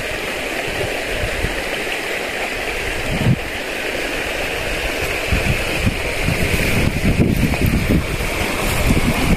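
Steady rush of a mountain stream's running water, with wind buffeting the microphone in low gusts that grow stronger in the second half.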